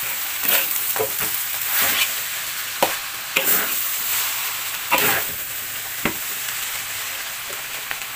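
Fried noodles sizzling in a large wok while being tossed with a metal spatula. Irregular scrapes and clanks of the spatula against the wok come about once a second, fewer toward the end.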